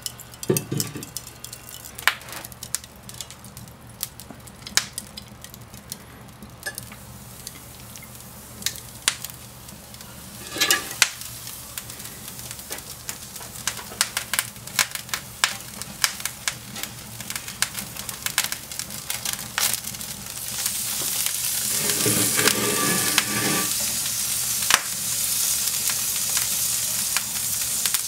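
Lump charcoal and wood fire crackling and popping in a kamado grill, with scattered metal clinks and scrapes as the grate and meat skewers are handled. From about twenty seconds in a louder steady hiss of flames and sizzling skewered beef takes over.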